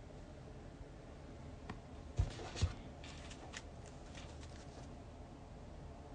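Quiet room with handling noise: two soft thumps about half a second apart a little past two seconds in, then a scatter of faint clicks and rustling.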